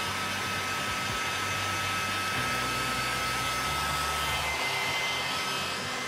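Electric hot-air blower running steadily with a high fan whine, heating a heat-shrink sleeve so that it shrinks onto a motorcycle fork tube.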